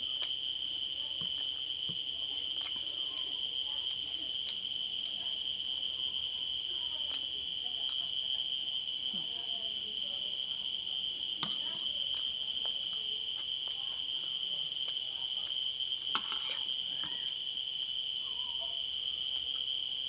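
Crickets chirring in one steady, unbroken high-pitched drone. Two short clinks of a metal spoon against a plate sound over it, one about halfway through and one about three-quarters through.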